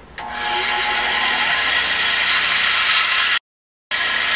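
Bandsaw running and cutting diagonally through a short piece of wooden guitar brace stock: a steady whirring hiss that builds up over the first second. It cuts out for about half a second near the end, then resumes.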